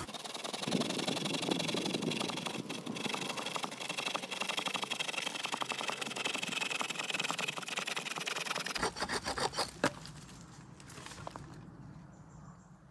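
A knife rasping against a sycamore stick in a fast, dense run of strokes. It breaks off about nine seconds in, followed by a few separate scrapes, and then the sound dies away.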